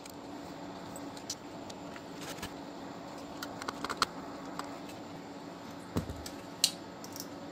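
Small screwdriver and metal parts of a floppy disk drive's sheet-metal chassis clicking and tapping as screws are undone and a plate is taken off: scattered sharp clicks with a quick cluster about four seconds in, a soft thump about six seconds in and a louder click just after, over a steady low hum.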